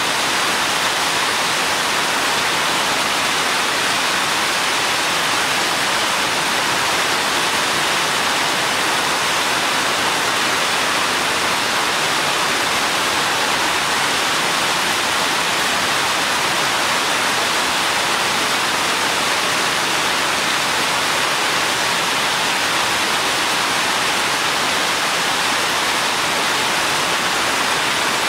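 Steady rain falling: a dense, even hiss in which no single drops stand out.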